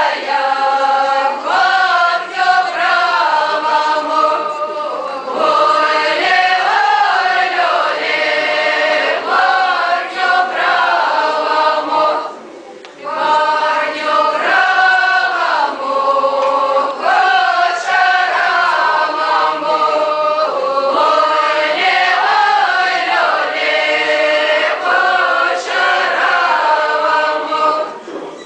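Group of voices singing a traditional Belarusian spring round-dance (karahod) song, phrase after phrase, with a short pause about twelve seconds in and another near the end.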